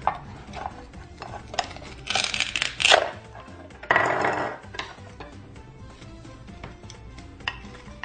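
Toy knife cutting a velcro toy pineapple apart: two rasping velcro rips, about two and four seconds in, with light clicks and taps of the toy pieces and knife on the cutting board.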